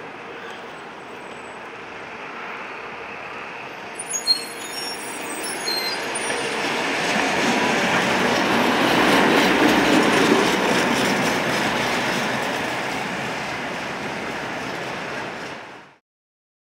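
Tatra T3 tram passing close by on street track: its steel wheels squeal briefly about four seconds in, then the running rumble swells to a peak about ten seconds in and fades, cutting off suddenly near the end.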